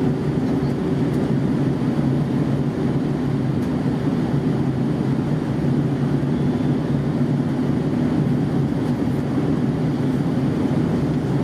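Air New Zealand Airbus A320 in flight: a steady jet engine and airflow hum with a few steady low tones, unchanging throughout.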